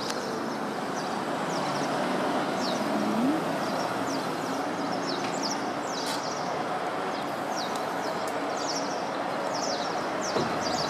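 A flock of pied wagtails gathering at a roost tree, keeping up many short, sharp calls throughout, over a steady hum of city traffic.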